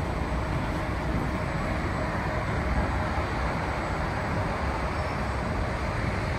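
Mitsubishi Electric VRF outdoor condensing units running with three modules switched on, giving a steady, even rush of fan and machine noise that does not change.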